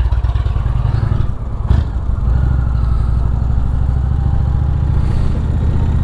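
Indian V-twin touring motorcycle engine running at low speed as the bike pulls away and rolls slowly, its exhaust pulsing steadily. There is a single short clunk a little under two seconds in.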